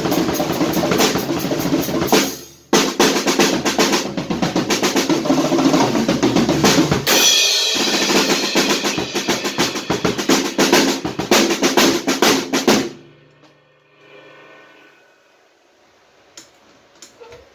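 Drum kit played in a fast, dense groove of snare, bass drum and cymbals, with a brief break a couple of seconds in. The playing stops abruptly near the end, leaving a fading ring and a few light stick clicks.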